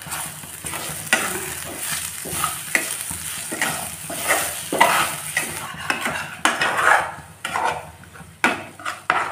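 A spatula stirring and scraping spices and onion-chilli paste around a hot non-stick frying pan, in quick repeated strokes over a steady frying sizzle: the masala frying in oil.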